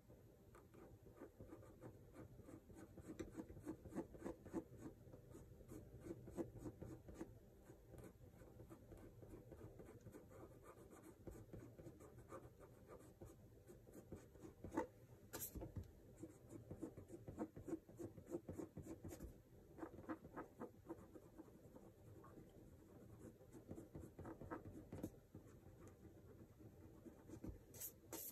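Faint scratching of a pencil-like wooden tool stroking across illustration board in many short strokes, with a few sharper taps, one about fifteen seconds in.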